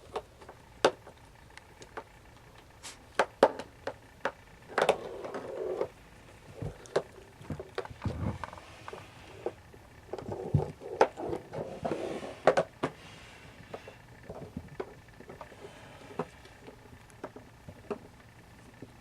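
Siamese kittens at play: scattered sharp taps and knocks, with two stretches of scuffling, about five seconds in and again from about ten to thirteen seconds in.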